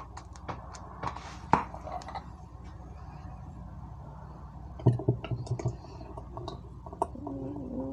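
Spaghetti sauce being poured into a clear plastic measuring cup: scattered light clicks and knocks, with a cluster of louder knocks and plops about five seconds in as the sauce goes in.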